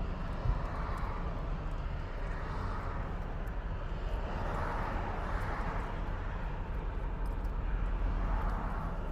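Steady low rumble of distant engines, swelling about halfway through and again near the end.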